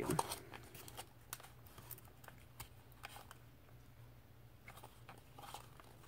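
Faint scattered clicks and crinkles of a small plastic ink cup's lid being pressed and worked by hand, not snapping shut. The clicks come thickest near the start and again near the end.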